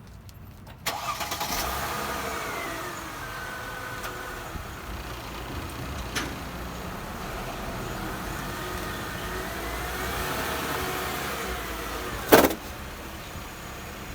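2000 Mercedes E320's V6 engine starting about a second in, then running with the pitch falling and later rising and falling again as the car is driven up onto ramps. A loud thump comes near the end, after which the engine sound is lower.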